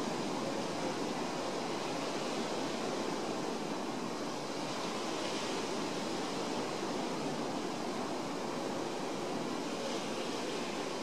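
Surf washing onto the shore, a steady rushing noise with no breaks.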